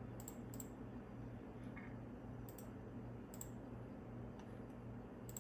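A handful of separate, sharp computer mouse clicks, spaced irregularly, over a faint steady low hum.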